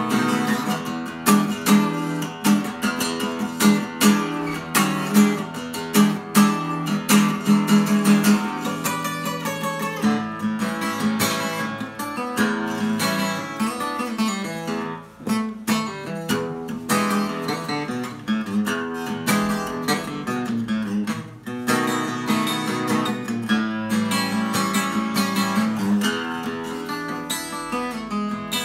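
Takamine steel-string acoustic guitar played solo: a blues, with strong rhythmic strummed chords for the first several seconds, then picked notes and chords.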